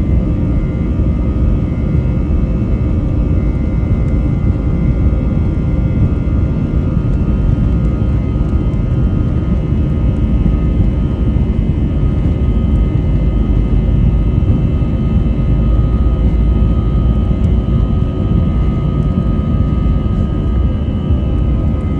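Inside the cabin of an Airbus A320 at takeoff and climb power: the jet engines make a steady, loud, deep rumble, with a few faint, steady whining tones above it.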